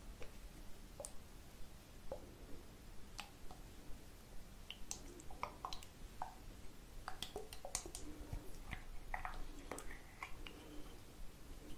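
Small pump bottle with a plastic cap handled and turned close to the microphone: irregular soft clicks and taps.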